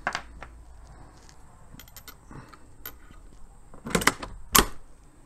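Metal clicks from a 1938 Mauser K98's bolt action. There are two light clicks at the start, faint ticks, then a cluster of sharp clicks about four seconds in as the bolt is pushed forward and closed.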